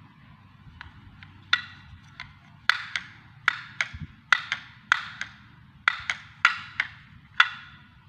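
A quick, irregular series of about fifteen sharp, ringing taps on something hard, like a small bell or a tapped dish, softer at first and louder from about two and a half seconds in.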